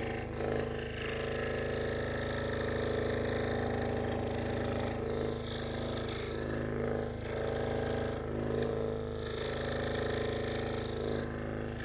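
Hawk G4 scroll saw running steadily, its reciprocating blade cutting a small piece of wood.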